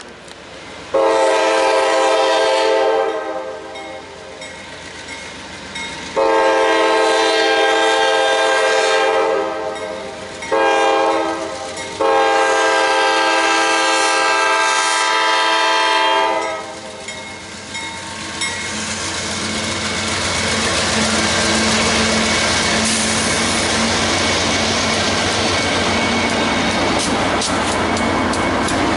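CSX diesel locomotive's air horn blowing the grade-crossing signal: two long blasts, a short one, then a final long blast. The lead locomotives then pass close by, their engine noise and wheel rumble swelling, with wheels clicking over the rail joints near the end.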